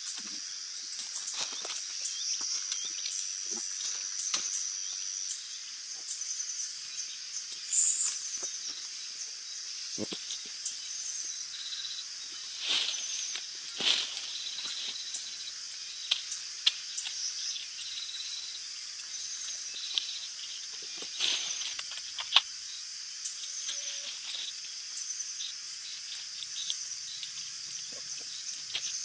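A steady, shrill insect chorus with a regular pulsing, and occasional short knocks and clicks scattered through it.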